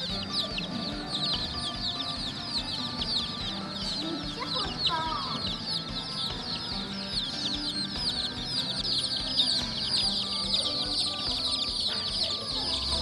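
A crowd of domestic chicken chicks peeping nonstop, with many high, short, downward-sliding cheeps overlapping.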